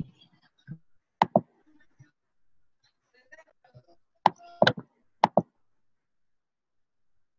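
Seven sharp knocks or clicks, mostly in quick pairs: two just over a second in, then a cluster of five between about four and five and a half seconds in.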